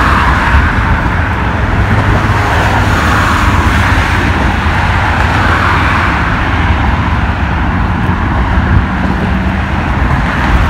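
Steady road traffic noise with a low rumble, cars and buses running along a city bridge roadway.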